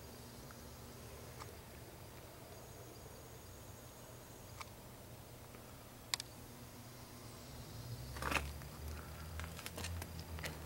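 Quiet outdoor ambience with a faint hiss and a few sharp clicks. A low rumble builds over the last few seconds.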